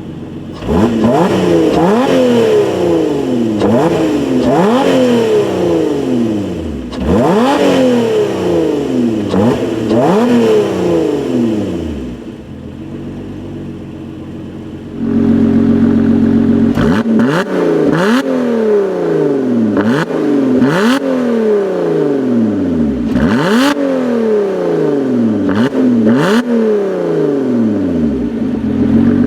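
2017 Lotus Evora 400's supercharged 3.5-litre V6 revved at standstill in race mode with the exhaust valves open: a string of quick throttle blips, each rising sharply and dropping back to a high idle. The blips come in two runs, with a few seconds of idle between them about halfway through.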